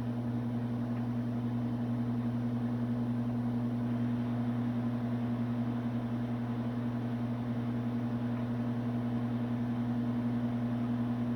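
Microwave oven running while it heats a bowl of ramen in water: a steady low hum.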